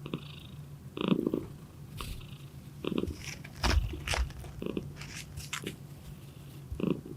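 Norwegian Forest cat purring, in pulses that come every second or two. A run of sharp clicks and crunches falls in the middle, like chewing or licking.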